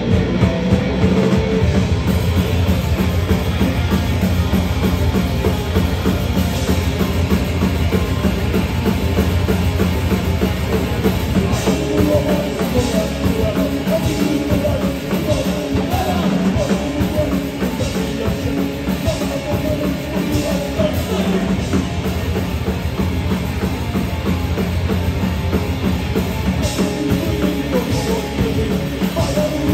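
Rock band playing live on drum kit and guitar, loud and without a break.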